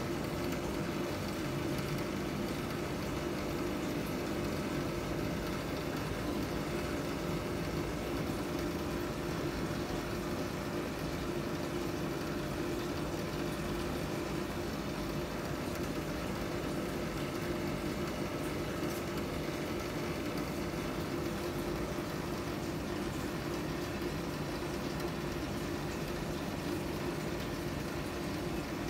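Aquarium filter pump running: a steady hum with a constant wash of moving water.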